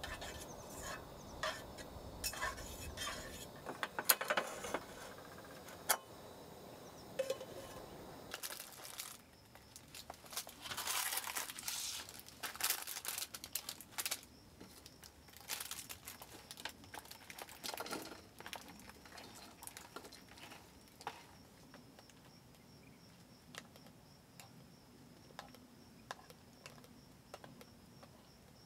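Handling sounds of a camp meal: clinks and taps of cookware and utensils, then plastic food containers and packaging crinkling and clicking as salad toppings are opened and tipped onto a metal plate. The loudest rustling comes about a third of the way in.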